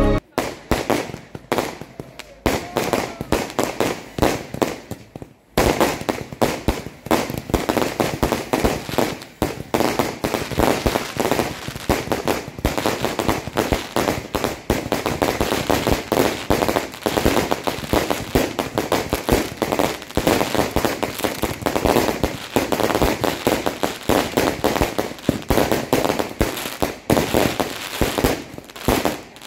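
Fireworks going off: ground-launched shells firing and bursting overhead in a rapid string of bangs and crackles, sparser at first and then nearly continuous from about five seconds in.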